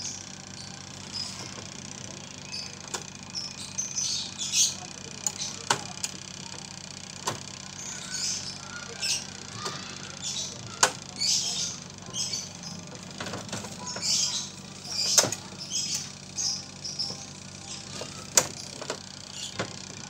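Small birds chirping in repeated short bursts, with sharp clicks and taps from wires and plastic parts being handled in a washing machine's control panel.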